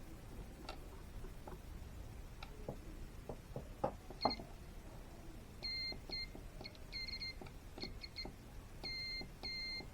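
Multimeter on continuity (beep) mode beeping with a high steady tone, in short and longer beeps each time the repaired keyless door button is pressed, a sign that the switch now makes contact. A few small clicks come first, about halfway in.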